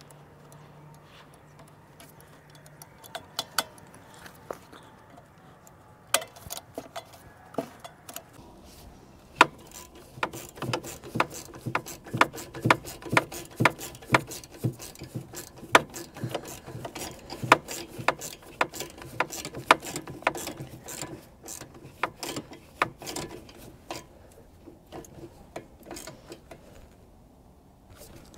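Hand ratchet wrench clicking while tightening the nuts on the carburetor mounting studs of an Onan QG 4000 generator: a few clicks at first, then a long run of rapid clicking through the middle that thins out near the end.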